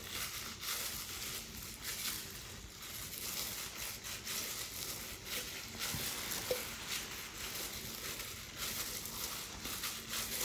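Hands in disposable plastic gloves kneading rice-flour dough in a glass bowl: a continuous soft crinkling and squishing with many small irregular crackles.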